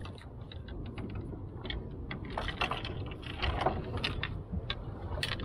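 Fishing gear being handled and packed up: a run of irregular clicks, knocks and light rattles over a steady low rumble.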